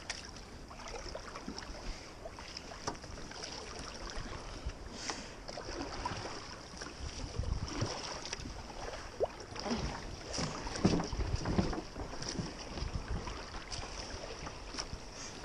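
Kayak paddle strokes splashing and dripping in river water, irregular and picking up partway through, with wind buffeting the microphone.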